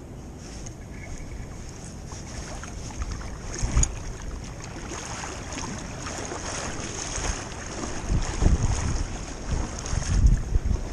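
Creek water running close by, with wind gusting on the microphone in low buffets that grow stronger in the last few seconds.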